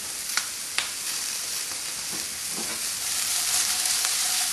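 Shrimp sizzling in a hot skillet at medium-high heat as pepper strips and basil are added, with two sharp clicks in the first second. From about three seconds in the sizzle gets louder as the pan is shaken to toss the food.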